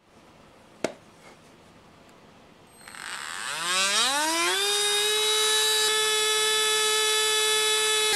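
A single sharp click about a second in. Then a handheld rotary tool switches on and spins up, a rising whine that settles after about two seconds into a steady high whine.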